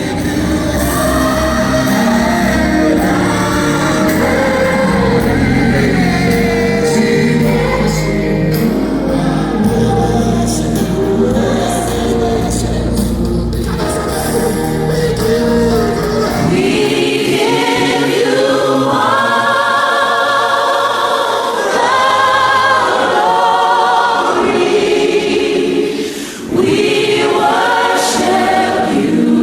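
A choir singing a gospel song, with deep bass accompaniment that drops away about 16 seconds in, leaving mostly voices.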